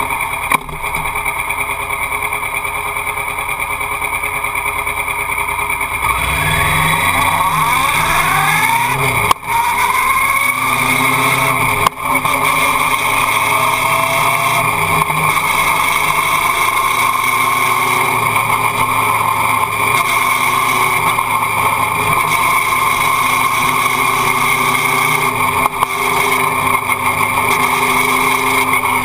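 Motorcycle engine ticking over steadily at a standstill. About six seconds in it pulls away, rising in pitch through the gears, with brief dips at the shifts around nine and twelve seconds. It then runs steadily at riding speed, with another brief dip near the end.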